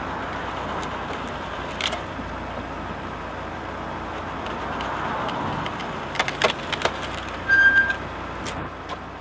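A car engine running steadily, driving a wheel-mounted cone screw splitter, while wood pushed onto the spinning threaded cone cracks and splits: one sharp crack about two seconds in and a cluster of cracks later on, with a brief squeak near the end.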